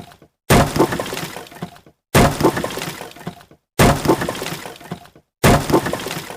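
Wood breaking sound effect, repeated four times about every second and a half: each is a sudden sharp crack followed by a crackling tail that dies away over about a second.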